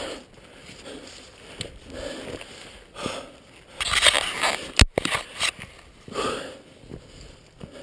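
A climber breathing hard in noisy gasps about once a second, with a single sharp knock a little before five seconds in.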